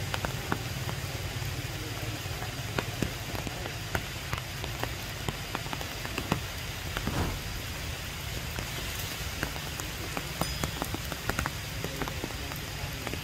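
Steady rain falling on tree leaves, a constant hiss with many scattered sharp drop ticks, over a low steady rumble.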